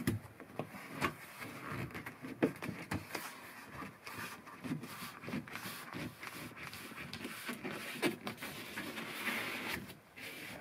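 Blue foam window cover being handled and pressed by hand into a cabin window recess: rustling and rubbing with many light knocks and clicks, and a stretch of harder scraping near the end.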